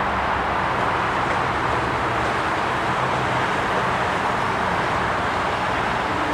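GO Transit diesel commuter train running, a steady rushing rumble with a low hum beneath.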